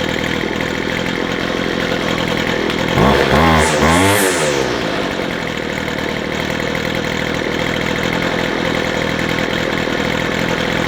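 McCulloch strimmer's two-stroke engine idling steadily on its readjusted carburettor, with a brief throttle blip about three seconds in that rises and falls back to tick over.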